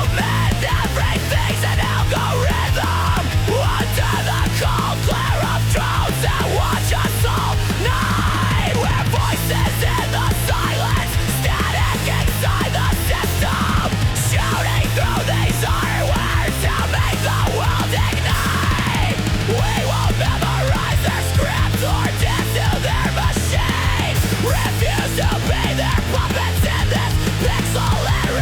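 Dark electronic industrial track with heavy distorted, metal-like instrumentation and a loud, steady bass line, AI-generated music.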